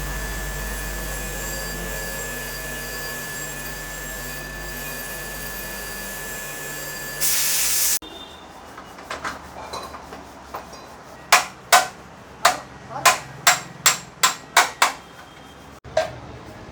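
A steady workshop hum with a thin high whine, then a short, loud burst of hiss. After a cut comes a run of about ten sharp hammer taps on metal, spaced about half a second apart and speeding up slightly towards the end, during motorcycle chain-and-sprocket work.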